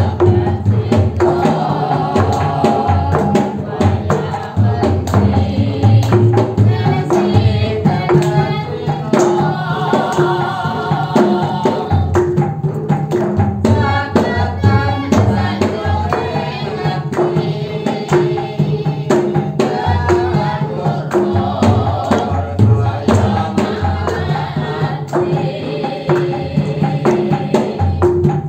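Cave stalactites and stalagmites struck in a steady rhythm, ringing with gamelan-like pitched notes, accompanying a singer performing Javanese langgam.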